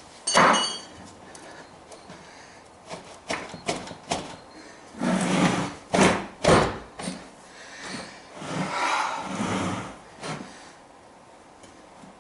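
Hand tire-changing work on a motorcycle wheel: a sharp metal clank that rings briefly, followed by a run of knocks and longer scraping and rubbing sounds.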